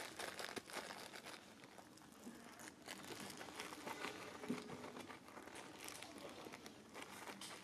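Faint, scattered crackling and rustling clicks from a baby monkey handling and chewing fruit and scrambling about on stone.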